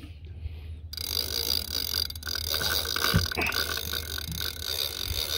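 Savage Gear SGS8 10000 spinning reel's drag running steadily as braid is pulled off the spool, over a low steady hum.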